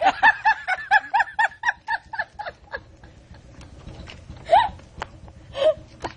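A person's high-pitched laughter, a quick run of short bursts over the first three seconds, then two single short laughs or exclamations later on.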